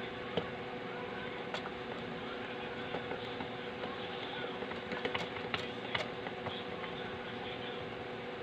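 A screwdriver turning a screw that fastens a power transistor to an aluminium heatsink, giving scattered small metal clicks, most of them about five to six seconds in, over a steady background hum.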